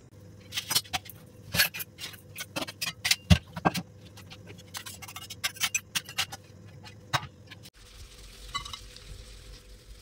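Stainless-steel utensils clinking and clattering as they are handled and set down at the sink, a quick irregular series of sharp metallic knocks. Near the end it gives way to a quieter, softer sound of a steel pan being scrubbed.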